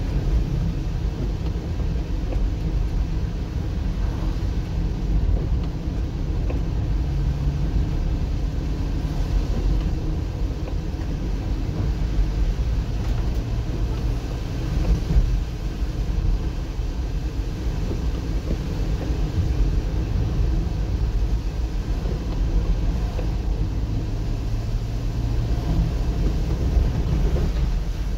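Steady low rumble of a moving car heard from inside the cabin: engine and tyre noise on a wet road.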